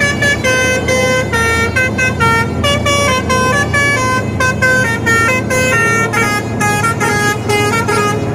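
Musical multi-tone air horn playing a fast tune of short notes, over a steady engine drone.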